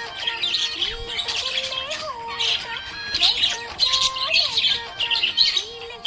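Budgerigar chirping and twittering in quick bursts, a cluster roughly every half second, over a melodic tune.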